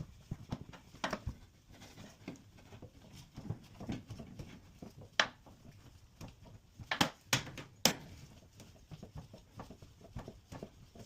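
A series of irregular clicks and knocks, hard objects tapping and bumping, with the sharpest knocks about five seconds in and several more around seven to eight seconds in.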